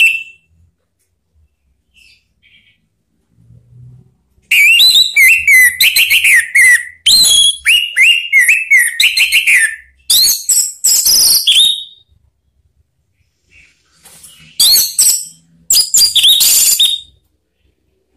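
Orange-headed thrush (anis merah) singing loud bursts of varied whistled phrases full of quick downward-slurring notes, starting about four seconds in and breaking off for a couple of seconds between bursts.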